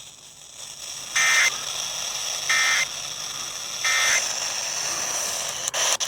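Emergency Alert System end-of-message data tones: three short, identical bursts of buzzing two-tone digital data, about a second and a half apart, signalling the end of the alert. Near the end come a few sharp clicks as the audio cuts.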